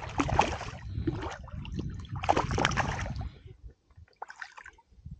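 A hooked fish splashing and thrashing at the surface beside a kayak: two bursts of splashing about two seconds apart, then it goes quiet near the end.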